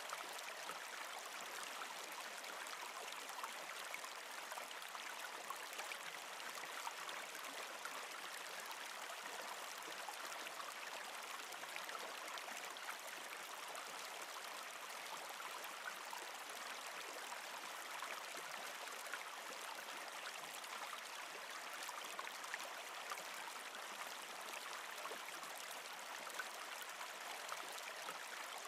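Small shallow forest stream flowing: a steady, even rush of water with fine trickling ticks in it.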